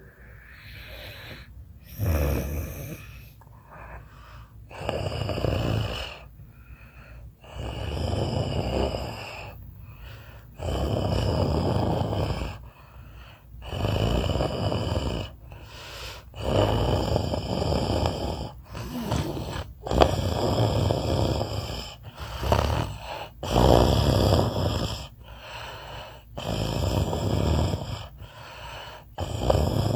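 Snoring in a steady rhythm, one long rasping snore roughly every two to three seconds, about a dozen in all.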